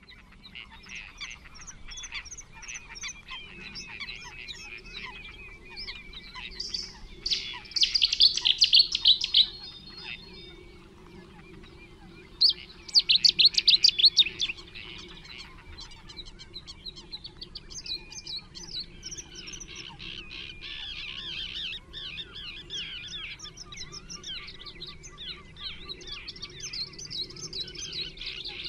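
Several songbirds singing together in a steady chorus of chirps and trills. Two loud bursts of rapid, twittering song stand out, one about seven seconds in and another about twelve seconds in.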